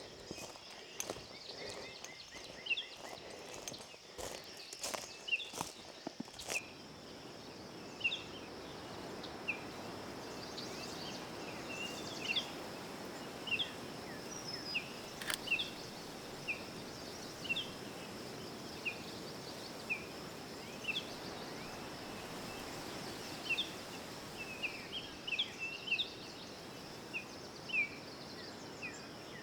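Small birds calling: short high chirps, one or two a second, over a steady faint high hum and a soft hiss. A few sharp clicks and knocks in the first six seconds.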